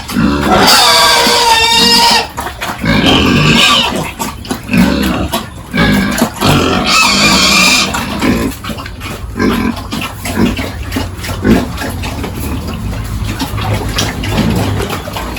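Pigs squealing and grunting: a long high squeal about a second in and another about seven seconds in, with short grunts and knocks between, settling to quieter grunting near the end.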